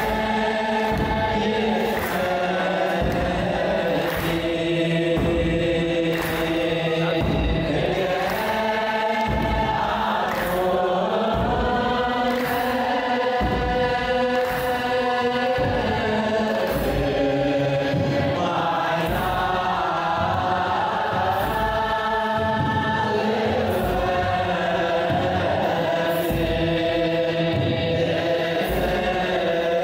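A mixed choir sings an Eritrean Orthodox Tewahdo mezmur (hymn) in chant style, over a slow, steady kebero drum beat of about one stroke a second.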